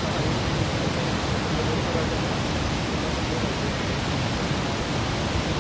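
Steady, unbroken rush of the Horseshoe Falls at Niagara, a huge volume of water pouring over the brink and crashing below; the sound is heaviest in the low end.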